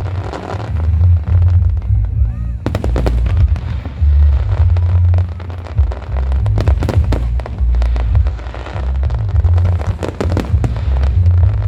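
Aerial fireworks display: a dense run of bangs and crackling bursts over a constant deep rumble of booms, with a short lull about two seconds in.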